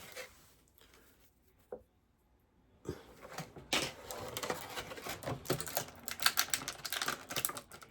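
Small plastic action-figure parts being handled, giving an irregular run of clicks and taps. It starts about three seconds in, after near silence with a single faint tick.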